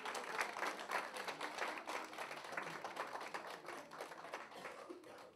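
A seated audience applauding, a dense patter of many hands clapping that dies away near the end.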